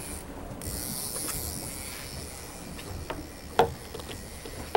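Steady wind and sea noise over the low rumble of a boat at sea, with a hiss rising in from about half a second in. A few sharp knocks or clicks break through, the loudest about three and a half seconds in and another right at the end.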